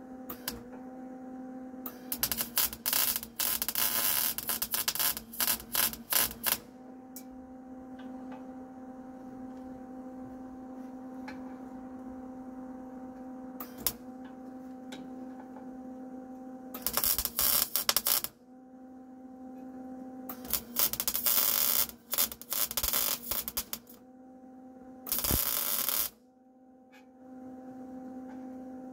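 Welding arc crackling in four bursts of one to four seconds as brackets are welded onto a steel air tank, over a steady electrical hum.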